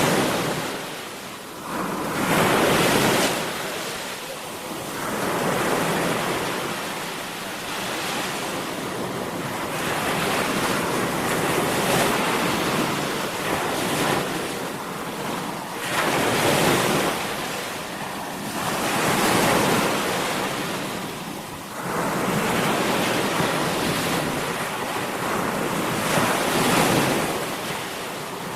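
Sea waves washing onto a shore, a continuous rushing surf that swells and eases every few seconds as each wave breaks and draws back.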